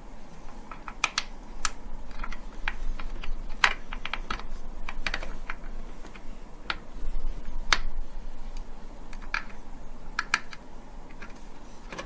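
Irregular light clicks and taps of SATA cables and their plastic connectors being handled and routed inside a PC case.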